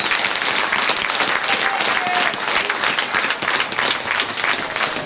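Ice hockey crowd applauding: dense clapping from many hands, easing slightly toward the end, with a few voices faintly in it.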